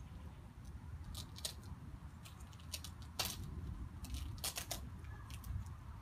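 Scattered sharp snips and crackles of duct tape being cut and pulled off a snake, the loudest about three seconds in, over a low steady rumble.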